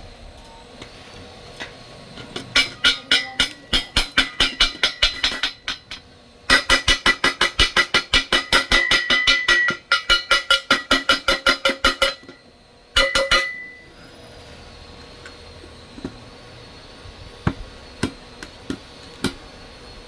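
Hammer striking steel in fast, even blows, about four or five a second, each blow ringing; two long runs with a short pause between them, then a brief burst of blows and a few light taps.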